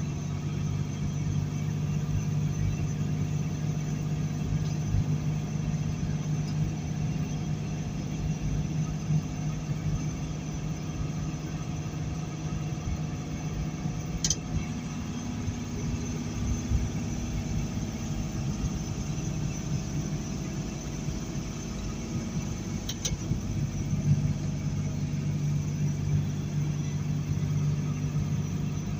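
Heavy diesel semi-truck cruising steadily at highway speed, heard from inside the cab: a steady low engine drone over road and tyre noise. A couple of brief faint clicks come about halfway through and again later.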